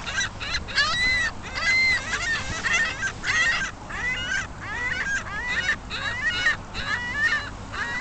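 Canada goose honking over and over, a rapid series of calls about two or three a second with a couple of short breaks.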